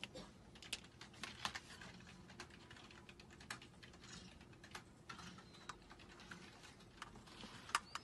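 Faint, irregular small clicks and taps of metal tweezers and a clear plastic lash tray being handled, about one or two a second, with one sharper click near the end.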